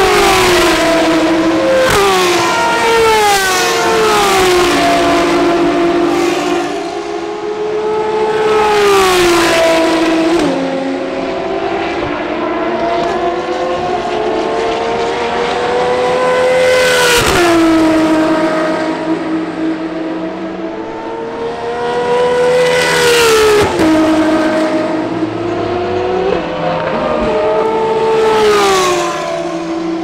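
Ferrari V12 track cars, FXX-K Evos and a 599XX, going past one after another at full throttle. Each engine's pitch climbs and then drops sharply at every upshift, loudest as each car passes, about five passes in all.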